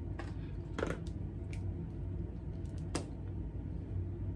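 A few light, scattered clicks from a lipstick tube and its packaging being handled and opened, over a steady low hum.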